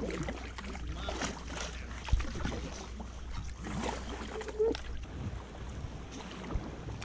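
Water splashing and sloshing with irregular knocks and clicks, over a low wind rumble on the microphone.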